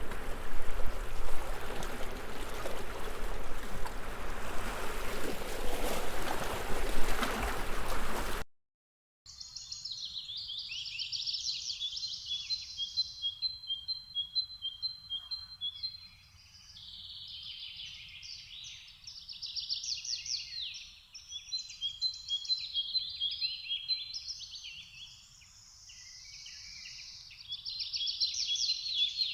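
A loud, rough, steady noise cuts off about eight seconds in; after a brief silence a songbird sings long, varied phrases of fast trills and repeated high notes, pausing now and then.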